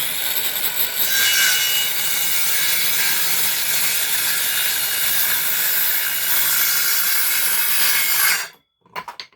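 Teeno cordless circular saw with a 165 mm, 24-tooth rip blade cutting through a piece of decking, running steadily under load for about eight seconds before cutting off sharply. A few short knocks follow near the end.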